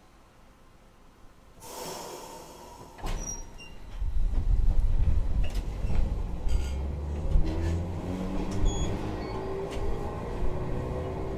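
Toyohashi Railway 3200-type tram: a short hiss and a few clicks, then it pulls away, its wheels rumbling low and its motor whine rising as it gathers speed.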